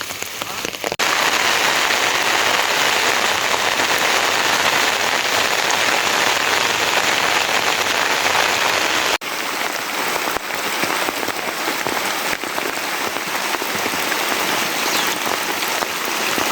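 Heavy rain falling, a steady dense hiss. It grows louder about a second in, then cuts off abruptly at about nine seconds to a slightly softer rain that carries on.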